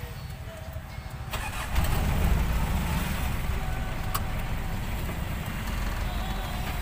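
The van's engine picking up to a loud, steady low rumble about two seconds in, just after a single click, as the van sets off.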